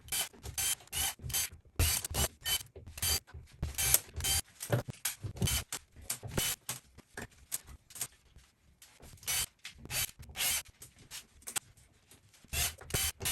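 A hand ratchet clicking in quick runs, about three clicks a second with short pauses between runs, as screws are backed out of an old glass-fuse panel.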